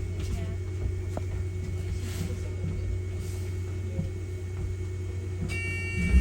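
Inside a Wright Gemini 2 hybrid double-decker bus on the move: a steady low running hum with a faint steady whine. Near the end a short set of high steady tones comes in.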